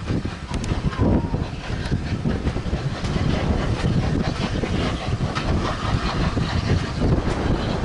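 Passenger coaches of a steam-hauled train rolling past, a steady rumble with the wheels knocking and clattering over the track.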